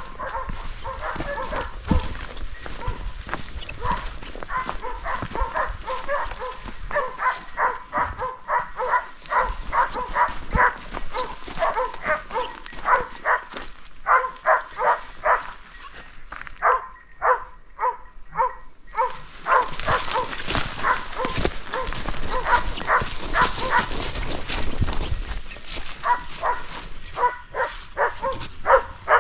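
A pack of hunting dogs barking and baying in a rapid, continuous series, several barks a second, with a brief lull around the middle. This is the sound of hounds working the chase on wild boar.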